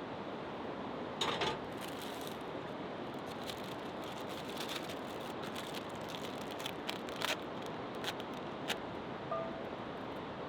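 Light clicks, rattles and rustling from handling food packages and cooking gear, scattered irregularly over a steady background hiss, with a louder rustle about a second in.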